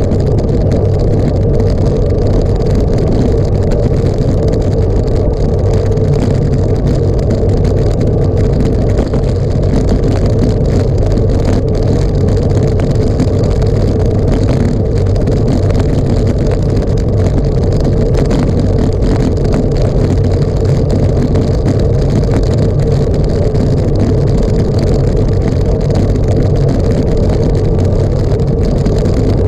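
Steady, loud rush of wind and motion noise on a moving camera's microphone, unbroken throughout.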